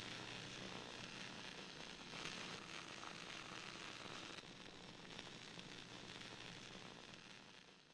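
Faint hiss of static with a light crackle, fading out to silence right at the end.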